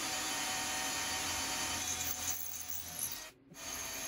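Cordless drill boring a number 3 (about 7/32-inch) pilot hole into an 80cc two-stroke bicycle engine's case, ready for a 1/4-20 tap. The drill runs steadily, stops for a moment about three and a half seconds in, then starts again.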